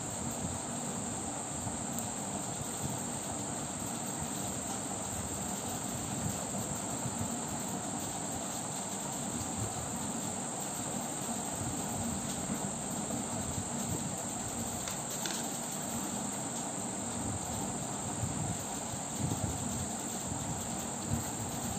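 A steady high-pitched whine that does not change, over a low rumbling background noise.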